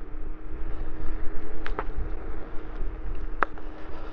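Trittbrett Sultan Plus electric scooter under way on a rough track. Its electric motor gives a steady whine over rolling rumble and wind, with a few sharp clicks: two close together, then one more near the end.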